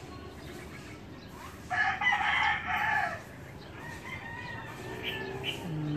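A rooster crowing once, a single loud crow of about a second and a half starting nearly two seconds in.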